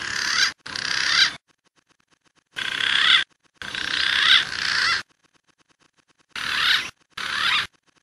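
Green pigeon (punai) calling: wavering, warbling whistled phrases that glide up and down in pitch, six phrases in three pairs with short pauses between them, each swelling in loudness toward its end.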